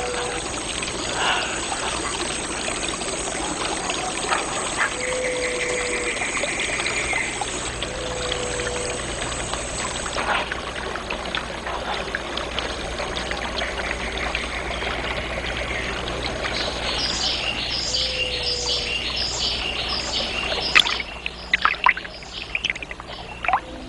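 Water trickling and running steadily. Over it come short animal calls: a few brief low whistles, two buzzing trills, and, from about two-thirds of the way through, a run of repeated high chirps. A few sharp clicks, the loudest sounds, come near the end.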